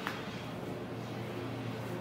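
Steady low machinery hum under a wash of noise, with a single click just after the start.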